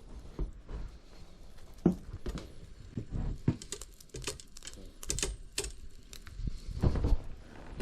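Irregular clicks, snaps and light knocks with some crinkling, heavier knocks about two seconds in and again near the end.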